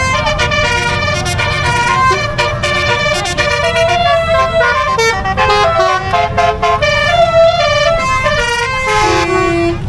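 Telolet bus horns playing quick melodies of stepping notes, several overlapping, over the low rumble of bus engines. A lower note is held near the end.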